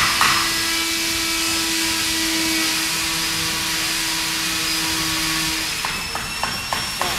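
Steady rushing noise with a low hum, like a running fan or blower. About six seconds in, a run of quick, even clicks starts, about four a second.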